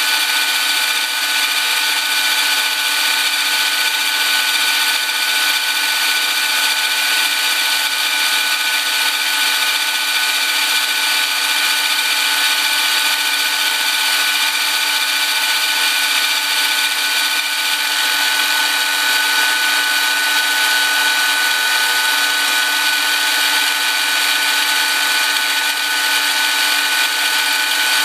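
Milling machine running steadily while its cutter mills a stainless steel block, with a steady high-pitched whine over the cutting noise.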